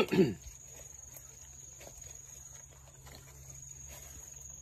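Insects trilling steadily at one high pitch, with faint scattered rustling ticks. Right at the start comes a brief loud voice sound that falls in pitch.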